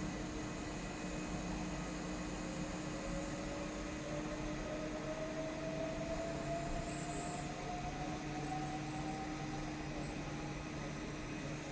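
Electric train accelerating away, its traction motors giving a faint whine that rises steadily in pitch over several seconds, over a steady low hum and station background noise.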